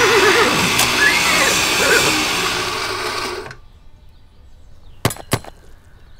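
Loud grinding, machine-like noise with a warbling squeal over it near the start, cutting off sharply about three and a half seconds in; two sharp clicks follow near the end.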